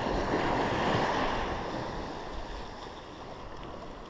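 Sea waves breaking on the beach: one wave washes in loudly in the first second or so, then slowly fades. Wind buffets the microphone throughout.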